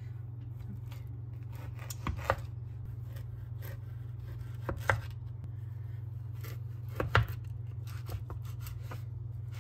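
Kitchen knife cutting through a block of raw tuna and knocking on a bamboo cutting board three times, about two and a half seconds apart, with a few lighter taps near the end. A steady low hum runs underneath.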